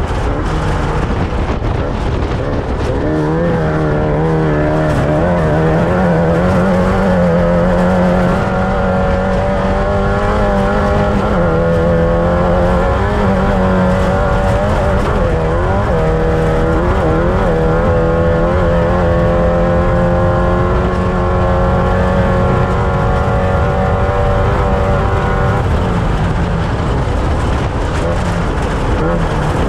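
Off-road race vehicle's engine running hard, its pitch rising and falling with the throttle over a steady rumble.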